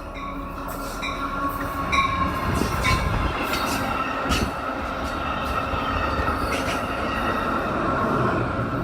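Amtrak passenger train passing: a steady rumble of wheels on rail, with a thin high wheel squeal throughout and several sharp clicks in the first few seconds.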